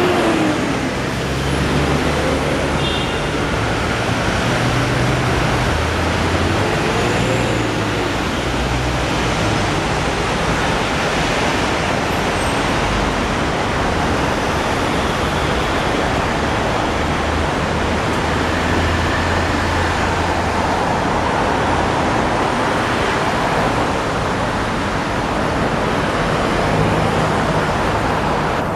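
Steady city street traffic noise: a constant rushing hiss of passing vehicles with a low engine rumble that swells and fades as vehicles go by.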